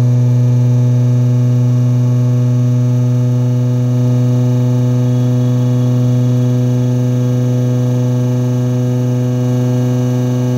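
A 220 V universal motor from a mini mixer, with a drill chuck on its shaft, running at full speed on AC at about 7,400 RPM. It gives a loud, steady hum that holds one pitch throughout.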